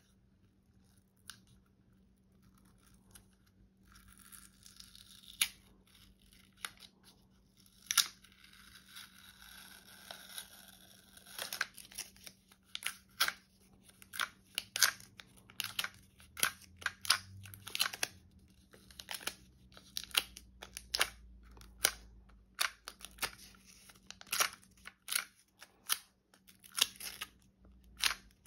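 A paper warning tag being worked off a pistol by hand: card crackling and rustling with many sharp small clicks. The clicks start about four seconds in and grow busier from about eleven seconds.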